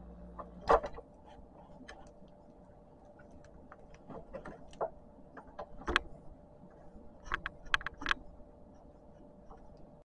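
Light clicks and taps of fingers pulling and handling push-on wire connectors and the overload protector on a refrigerator compressor's terminals, over a faint steady hum. A low hum cuts off at a sharp click just under a second in, and a quick run of clicks comes near the end.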